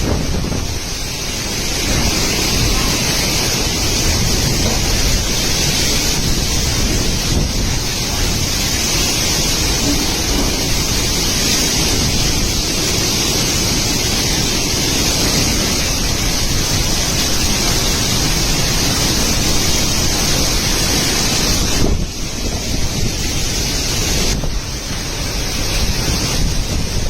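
Strong gusty cyclone wind rushing and buffeting the microphone in a continuous loud roar of noise, easing briefly twice near the end.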